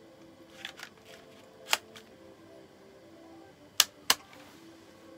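Airsoft pistol clicking into and out of a vacuum-molded kydex holster: sharp plastic clicks, a softer pair in the first second, a loud one near two seconds in and two more close together about four seconds in. Faint electronic background music plays underneath.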